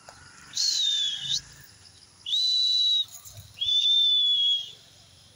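A person whistling three separate clear notes, each under a second long: the first dips in pitch and levels off, the other two are held level. The whistles coax a cat-like animal.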